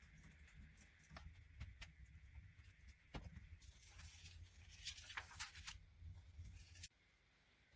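Faint rustling of paper and light clicks as a small handmade book is handled, cutting off suddenly near the end.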